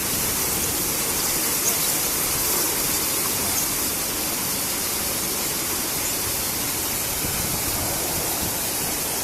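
Water spraying steadily from a rollover automatic car wash machine, a constant rushing hiss.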